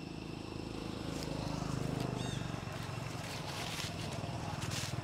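A low rumble that swells to its loudest about two seconds in and stays up, over outdoor background noise, with a short high chirp near the peak.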